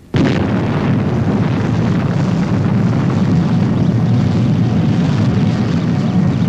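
Rocket engine sound effect cutting in suddenly and running steadily as a loud, dense low rumble.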